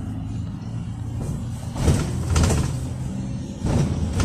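Inside the cabin of a moving GAZelle Next minibus, its Evotech 2755A engine running steadily under way. Several knocks and rattles of the body sound twice around two seconds in and again near the end.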